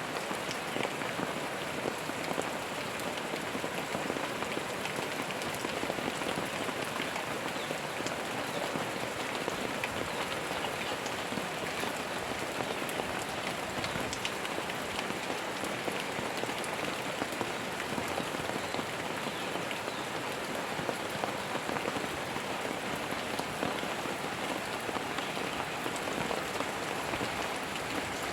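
Steady rain falling, with the small clicks of individual drops hitting a surface throughout.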